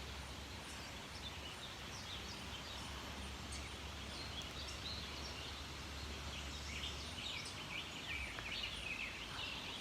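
Several small songbirds chirping and singing in quick, short phrases, the calls busier in the second half, over a steady outdoor hiss.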